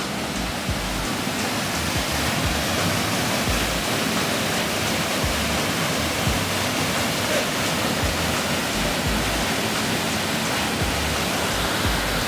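Steady rushing of flowing water, with short low rumbles now and then.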